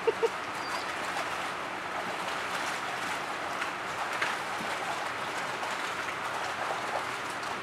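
Water splashing and sloshing in a plastic kiddie pool as several German shepherds and puppies wade and jostle in it, with a few faint knocks.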